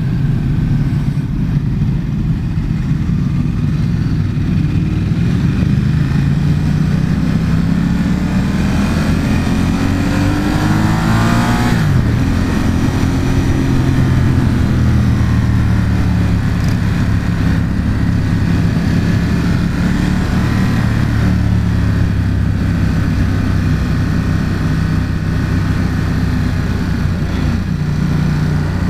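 Ducati XDiavel's L-twin engine accelerating hard. Its pitch climbs steadily for about ten seconds, drops sharply at a gear change about twelve seconds in, then rises again more gently as the bike keeps pulling.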